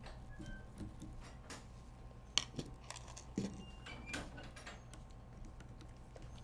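Scattered light clicks and small metallic clinks from handling a laptop's screen parts, screws and screwdriver, with two sharper clicks about two and a half and three and a half seconds in, over a steady low hum.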